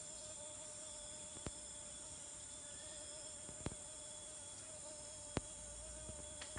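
Forest insects singing in a steady chorus of several sustained pitches, with three sharp clicks spaced a couple of seconds apart.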